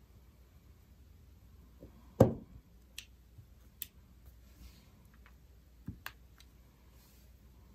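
Light clicks and taps of a pick-up tool lifting adhesive faceted gems off their sheet and pressing them onto a card, with one louder knock on the work surface about two seconds in.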